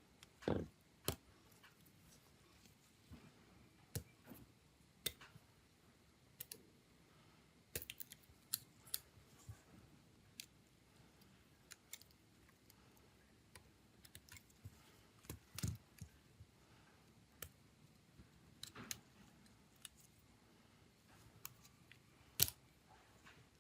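Irregular small clicks and taps of hand tools and phone parts being handled during the phone's disassembly, a few louder knocks among many faint ones.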